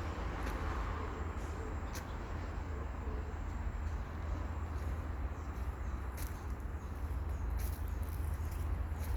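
Outdoor walking ambience: wind rumbling on the microphone under a steady hiss, with a scatter of short, high ticks and chirps that come more often in the second half.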